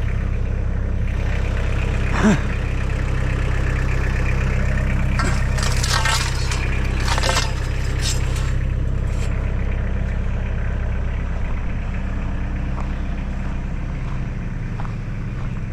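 Tractor engine running steadily at idle, with scattered clanks and clatter of scrap being handled about 2 seconds in and again between about 5 and 8 seconds.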